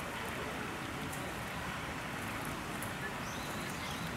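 Steady outdoor background noise, a hiss with no distinct event, and a few faint high chirps near the end.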